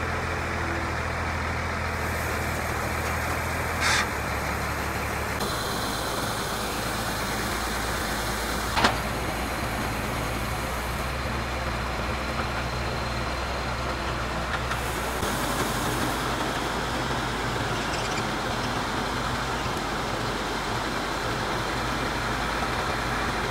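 Engine of a tracked rice combine harvester running steadily. Two brief sharp clicks stand out, about four and nine seconds in.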